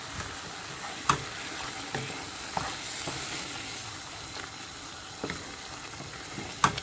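Chicken mince and tomato purée sizzling in a pan while a wooden spoon stirs it, with a few light knocks of the spoon against the pan.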